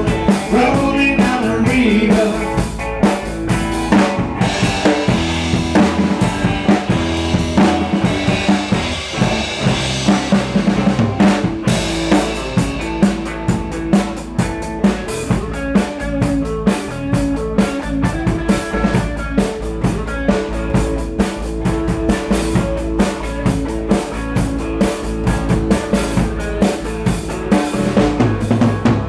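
Live rock band playing, the drum kit keeping a steady beat with bass drum and snare hits, over electric guitar.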